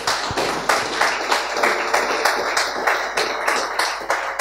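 Audience applauding: many hands clapping, starting to die down near the end.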